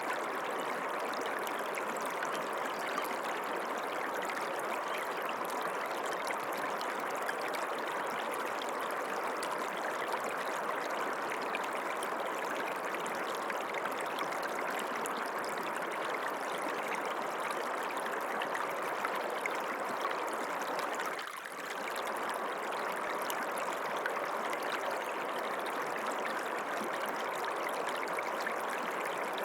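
Water running in a small creek, a steady flowing and trickling noise, dipping briefly about two-thirds of the way through.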